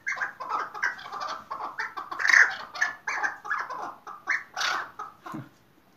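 Young chukar partridge calling in a quick, uneven run of short notes, several a second, with a brief low thump near the end.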